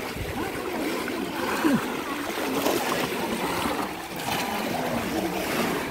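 Shallow muddy water splashing and sloshing as people wade and work bamboo cone fish traps into it, with many voices chattering in the background.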